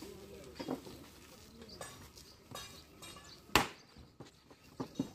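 Light kitchen-work knocks at a paratha stall, with one sharp, loud knock about three and a half seconds in, and faint voices early on.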